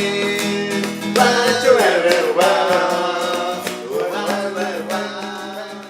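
An acoustic ska band playing live, with strummed acoustic guitar under a wordless sung line, fading out near the end as the song finishes.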